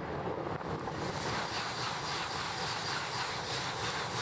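Shinkansen bullet train coming out of a tunnel and passing at high speed. A rush of air and running noise builds from about a second in and then holds steady as the cars go by.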